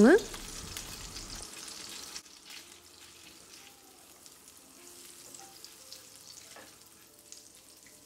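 Butter sizzling and crackling as it melts in a hot nonstick frying pan, with a silicone pastry brush swishing through it. The sizzle gets fainter after about two seconds.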